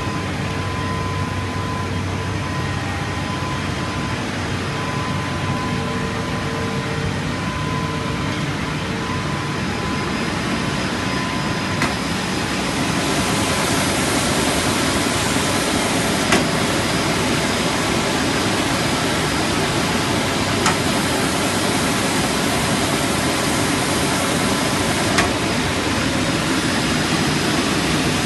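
Multi-functional panel edge milling and sanding machine running with a wooden panel feeding through: a steady motor and cutting noise that grows louder and hissier about halfway through as the panel edge passes under the milling and sanding heads. A few sharp clicks come through it.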